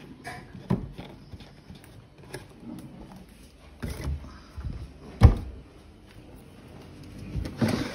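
Kitchen handling sounds: a plastic oil bottle being set back on a cupboard shelf among other bottles, with scattered light knocks and clicks and one loud knock a little over five seconds in.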